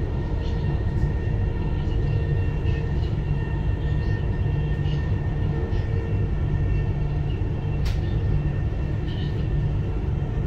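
Dubai Metro train running steadily between stations, heard from inside the carriage: a steady low rumble with a faint high whine over it, light ticks, and a single sharp click about eight seconds in.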